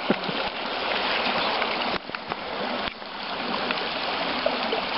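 Small mountain stream rushing over a rocky riffle: a steady, even rush of moving water, dipping briefly twice about two and three seconds in.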